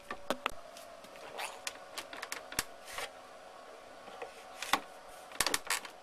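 Scattered light clicks and knocks from handling the outboard parts and tiller, with a quick run of clicks near the end, over a faint steady hum.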